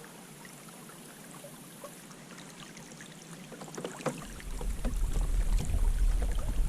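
Kayak on the water with small knocks and taps against the hull. Just after four seconds in, a sharp knock is followed by a loud, steady low rumble.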